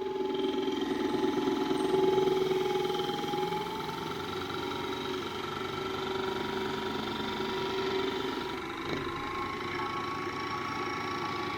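Homemade benchtop disc sander's 775 DC motor running with a steady whining hum, its pitch drifting slightly.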